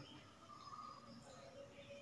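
Near silence: faint room tone with a few weak, short tones.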